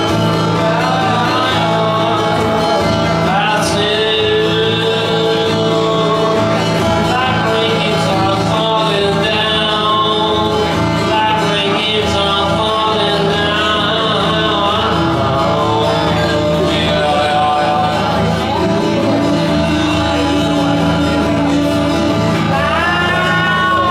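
Solo acoustic guitar played live, with a man singing over it at times.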